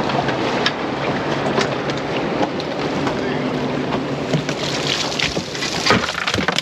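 Boat engine running steadily under a constant rush of wind and water noise, with a few light knocks.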